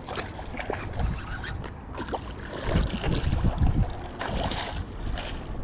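Rumbling wind and handling noise on the microphone, mixed with irregular splashes and knocks at the water's edge as a hooked catfish is brought in to the bank. The rumble swells about halfway through.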